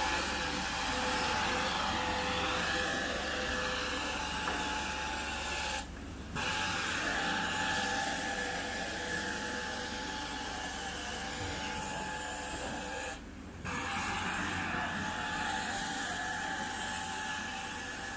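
Carpet-cleaning extraction wand drawn across carpet: the steady hiss and whine of its suction, dipping briefly twice, about six seconds in and again near thirteen seconds.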